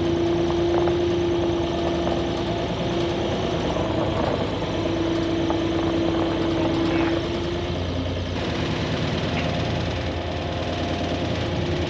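Skid loader engine running steadily, with a steady higher tone over it that drops away about two-thirds of the way through as the low engine note strengthens.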